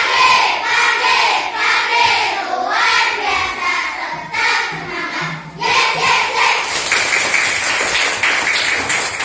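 A class of young schoolchildren singing a song together. About two-thirds of the way through, the singing gives way to a run of hand claps.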